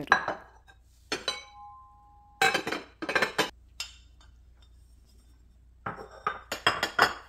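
White fluted ceramic serving dishes and their glass lids being handled and set down on a stone countertop: a series of clinks and knocks, one of them ringing on with a clear tone for about a second. Two busier clusters of clatter follow, one near the middle and one near the end.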